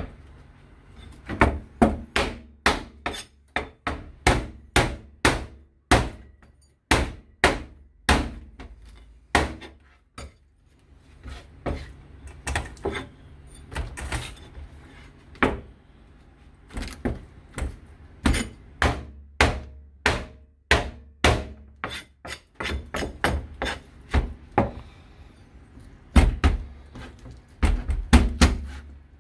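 Kitchen knife chopping on a cutting board: many sharp knocks at an irregular pace of roughly two a second, with a short lull about ten seconds in and a quicker, louder run near the end.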